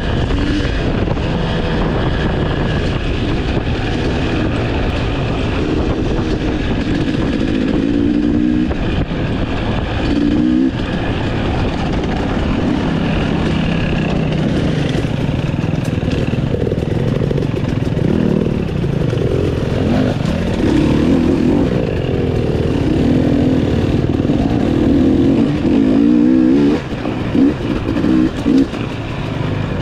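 Dirt bike engine revving up and down as it is ridden through tight single track, with the throttle opened and closed in quick succession near the end.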